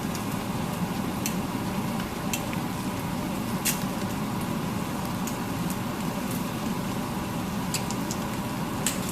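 Ground beef and garlic frying in a pan: a steady sizzle with scattered sharp pops and clicks, the loudest about halfway through and a few more near the end.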